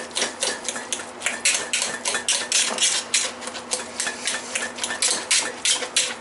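Wire potato masher mashing steamed cauliflower in a stainless steel pot: quick repeated clanks of the masher striking the pot through the soft mash, about three strokes a second.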